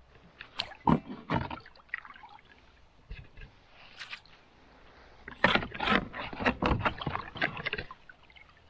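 Irregular knocks and clatter of gear being handled in a small boat, in two spells: a few sharp knocks about a second in, then a denser run of clatter after about five seconds.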